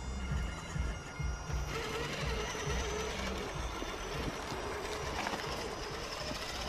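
Electric motor and geartrain of a Traxxas TRX-4 RC crawler whining steadily as the truck drives through snow.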